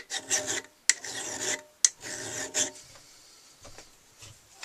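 Hand tool rasping across metal bar stock in three long strokes, each a bit under a second, with sharp clicks between them. The strokes stop about three seconds in.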